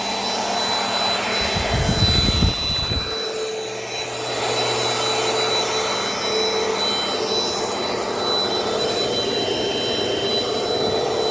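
Dirt Devil Dynamite vacuum cleaner running steadily, a whine over a constant rush of air, with its brush-roll belt intact after a sheet was cleared from it. A brief low rumble comes about two seconds in.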